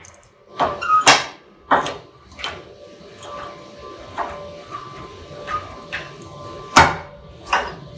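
Steel welding coupons clanking on a steel welding table and being clamped in locking C-clamp pliers: a few sharp metal clanks in the first seconds, then a louder one near the end. A faint steady hum runs underneath.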